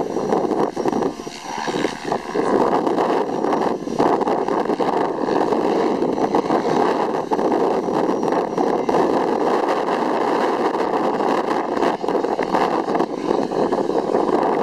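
Electric Mikado Logo 550 RC helicopter flying 3D aerobatics: a steady rotor hum with a faint high motor whine, swelling and dipping as it manoeuvres.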